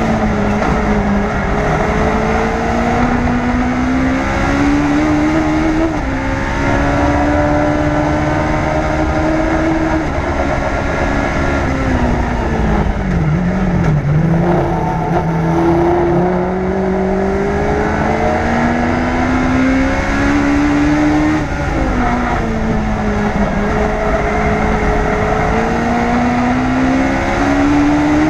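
Onboard sound of a Legends race car's engine, a Yamaha 1250 cc motorcycle four-cylinder, driven hard on track: the pitch climbs in steps through the gears, drops sharply under braking and downshifts about halfway through and again about three-quarters through, then climbs once more. Wind and road rush run underneath.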